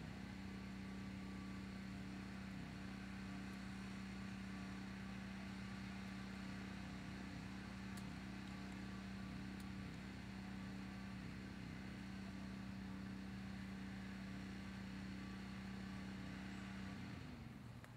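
Steady low motor hum that falls in pitch and dies away near the end.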